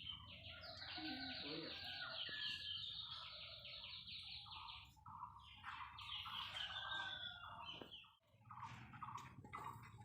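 Bird-like chirping: two long runs of rapid, high trilled notes with shorter chirps underneath, the trilling breaking off around the middle and again about eight seconds in.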